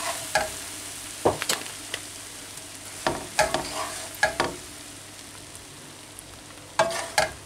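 A spatula scraping and knocking in a frying pan and against a bowl as stir-fried noodles are scooped out, in a few short clusters, over a steady sizzle from the hot pan.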